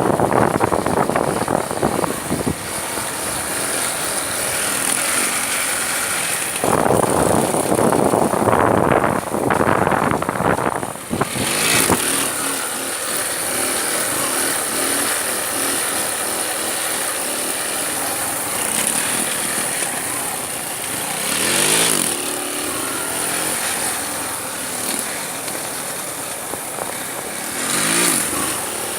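Motorcycle engine revving and passing, loud at first and again partway through, with its pitch sweeping up and down twice near the end.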